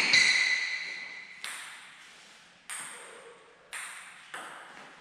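Table tennis ball bouncing, about five sharp clicks at uneven intervals. Each click rings on and dies away over about a second in the hall.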